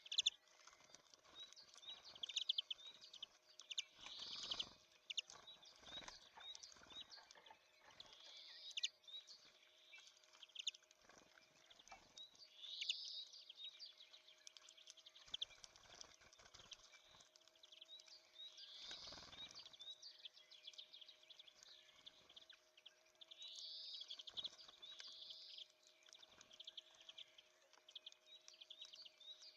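Small songbirds at a seed feeder giving quiet, short, high chirps and call notes throughout, with a few soft knocks or wing flutters mixed in.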